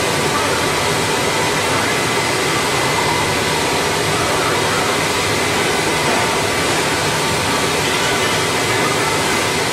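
Steady rushing noise of running production machinery (conveyors and blower-driven equipment), with a faint steady whine.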